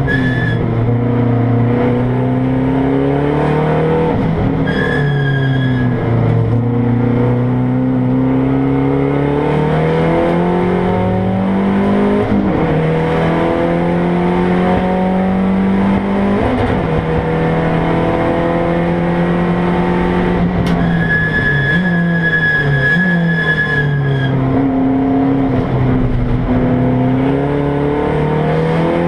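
Mazda race car's engine heard from inside the stripped cabin under hard acceleration on track, its pitch climbing through each gear and dropping back at each shift, with quick rev blips a little past halfway. A high steady whine comes in and out, strongest for a few seconds after about 21 seconds in.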